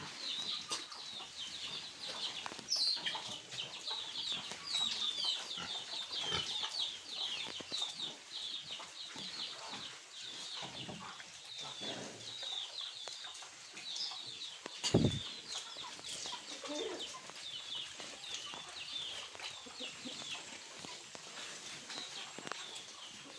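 A flock of small birds chirping continuously in many short high notes, with one dull thump about fifteen seconds in.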